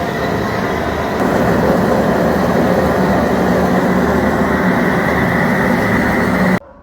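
TIG welding arc running steadily with a loud hissing buzz, getting louder about a second in, then cutting off abruptly near the end as the arc is broken.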